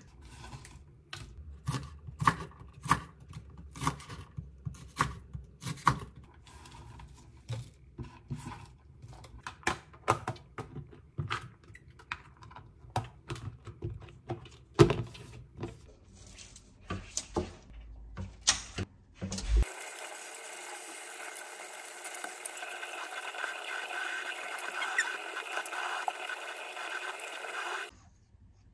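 Kitchen knife chopping green chili peppers on a wooden cutting board, a long run of sharp chops, followed by clicks and knocks of plastic storage containers being lidded, the loudest knock about 15 seconds in. From about 20 seconds a steady hiss takes over, and it cuts off abruptly just before the end.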